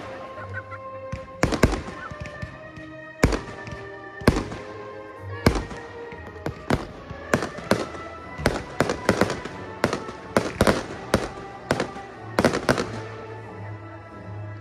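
Fireworks display: aerial shells bursting with sharp bangs, about one a second at first and coming thick and fast from about eight seconds in.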